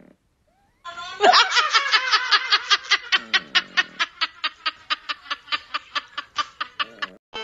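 A black-and-white cat making a rapid, laugh-like vocalisation: a run of about five short 'ha' pulses a second, starting about a second in, loudest at first and fading gradually over some six seconds.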